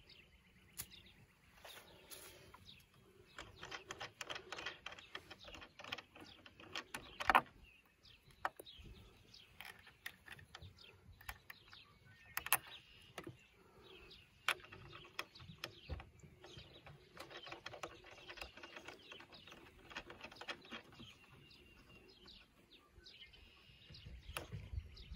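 Birds chirping, with clusters of small clicks and rattles from hardware being handled.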